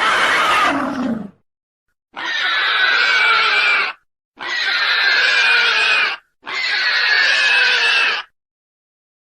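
Stock dinosaur roar sound effects: one call ends about a second in, then three near-identical roars of about two seconds each follow with short gaps between them, their pitch sliding slowly downward.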